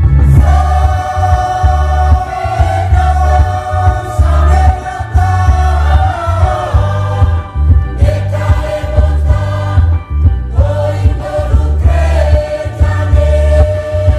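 Church choir singing a hymn in unison over a steady low beat, with short pauses between phrases.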